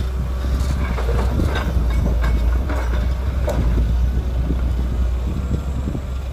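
Hydraulic excavator's diesel engine running steadily with a deep rumble while it digs and loads soil, with a run of metallic clanks and knocks in the first half.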